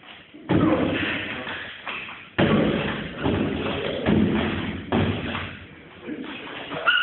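Several heavy thuds at irregular intervals, each echoing for a second or more, typical of impacts in a training hall.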